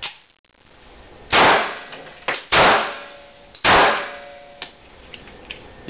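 Three shots from a 1911-style pistol, a little over a second apart, each echoing off the walls of a small room.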